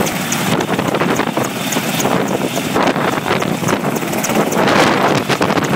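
RAF AW101 Merlin helicopter running on the ground with its rotors turning: a loud, steady rush of rotor and engine noise, with wind buffeting the microphone.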